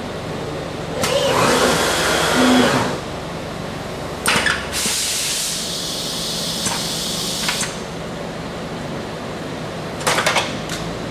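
Automated robotic assembly cell running over a steady machine hum, with a hiss lasting about three seconds midway, set off by a sharp click, and a quick cluster of clicks near the end as the fixture frame tilts and returns.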